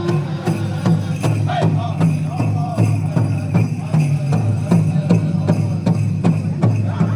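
Native American dance music: a drum beaten at a steady pace of nearly three strokes a second, with bells jingling over it.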